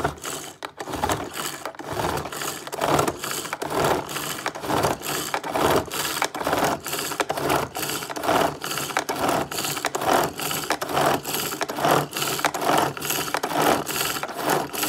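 Hand-operated pull-cord food chopper being pulled over and over, each quick pull whirring the blades round inside the plastic bowl and chopping a tomato, in a steady, even rhythm.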